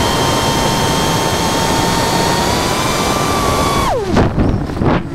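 DJI FPV drone's motors and propellers heard up close from a camera mounted on the drone: a steady high whine over a loud rush of air. Near the end the whine drops steeply as the motors slow, then comes back in short uneven revs.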